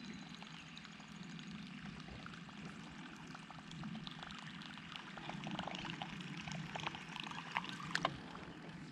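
Water gurgling and splashing, over a steady low hum, with scattered sharp clicks that grow more frequent near the end.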